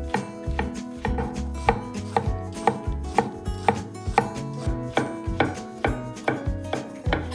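Chef's knife slicing through brown mushrooms and knocking on a wooden cutting board, a sharp chop about twice a second.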